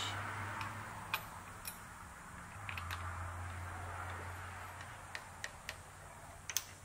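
Light metallic clicks and taps of a metal workpiece being handled, turned and seated back into the jaws of a machine vise, scattered irregularly over a steady low hum.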